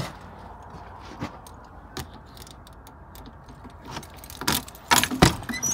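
Keys jingling and scattered light clicks, then a louder run of clacks and knocks from about four seconds in as the driver's door handle of a Kenworth T800 truck cab is worked and the door is pulled open.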